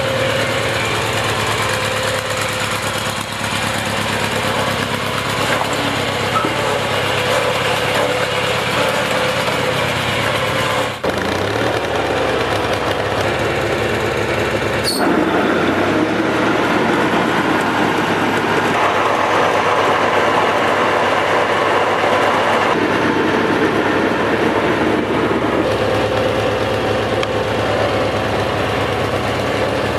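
Kohler Magnum 18 hp opposed-twin engine on a Snapper zero-turn mower running steadily. There is a brief dip about a third of the way in, and a sharp click about halfway, after which the engine sounds slightly louder and fuller.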